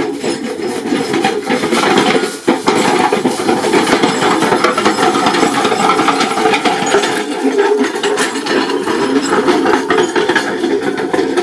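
Horse-drawn farm rig with a metal packing roller rattling and clanking without pause as it is pulled along a rough track, with metal chinking throughout.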